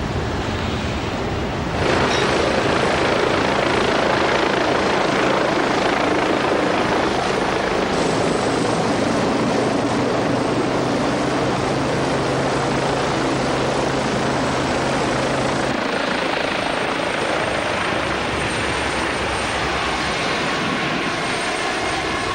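Westland Wasp helicopter running steadily, its rotor and engine making a dense, even noise. The sound steps up about two seconds in and changes abruptly again about eight and sixteen seconds in.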